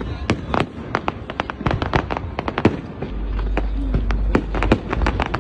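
Fireworks display: a rapid, irregular string of sharp bangs and cracks, with a low rumble underneath from about three seconds in.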